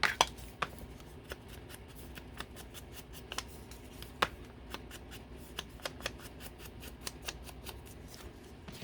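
Scissors cutting paper in a long run of short, irregular snips, with a few louder clicks near the start and about four seconds in.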